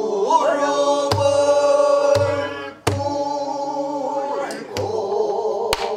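Pansori singing: a long melismatic phrase of drawn-out vowels sliding between held notes, with about four strokes on a buk barrel drum marking the rhythm.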